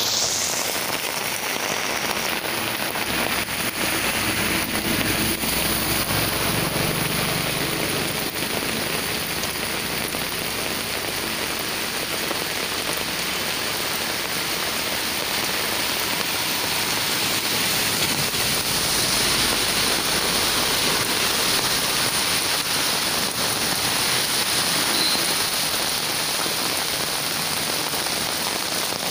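Steady heavy rain falling, mixed with muddy storm-water runoff rushing down an open earth channel.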